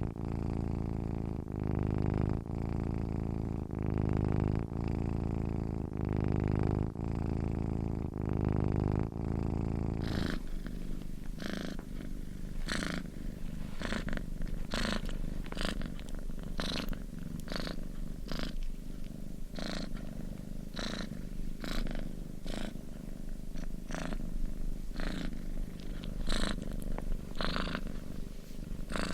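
Domestic cat purring close by, a low continuous rumble that swells and eases with each breath. About ten seconds in the sound changes abruptly to a thinner purr with regular brief, brighter pulses.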